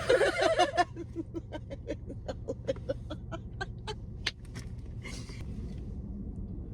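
A person's voice making a loud burst and then a fast run of short, choppy, gobble-like vocal pulses. The pulses slow down and fade over about three seconds, followed by a short breathy sound.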